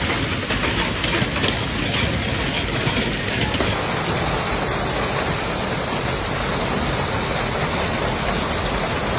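Steady rushing storm noise of heavy rain and running water, which changes abruptly about four seconds in.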